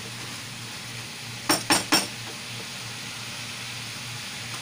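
Diced squash sizzling steadily in a frying pan as it is stirred, with three quick ringing clinks of a utensil against the pan about a second and a half in.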